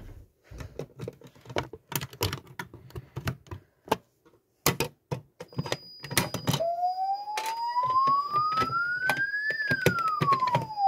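Clicks and knocks, then about six seconds in an EMS FirePoint wireless fire alarm sounder starts a single siren tone that rises slowly for about three seconds and then falls. A faint steady high tone sounds underneath. The alarm has been set off from the manual call point.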